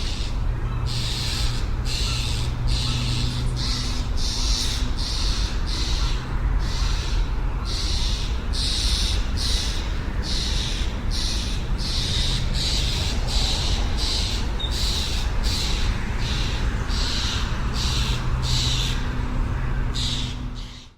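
Crows cawing over and over, about two raspy calls a second, above a steady low hum of city ambience; the recording cuts off suddenly at the end.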